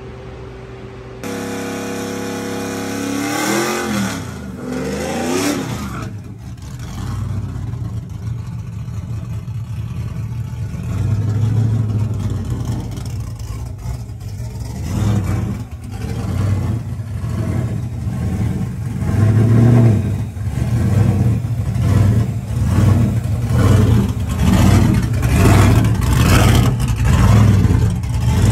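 OBS Chevrolet pickup truck's engine, revved up and down once a few seconds in, then running with a lumpy rumble that swells every second or so and grows louder as the truck rolls past.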